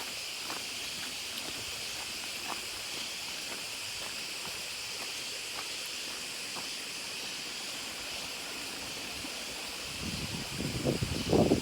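Forest ambience: a steady high-pitched hiss with a few faint ticks, then about ten seconds in a short burst of close crunching and rustling.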